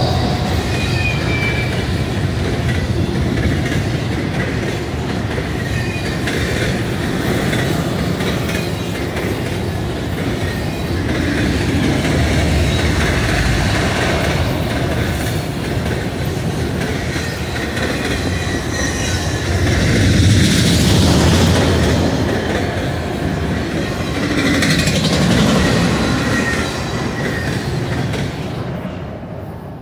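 A Union Pacific autorack freight train's cars rolling past close by: a steady loud rumble and clatter of steel wheels on the rails. The sound swells and eases as the cars go by and dies away near the end as the last of the train passes.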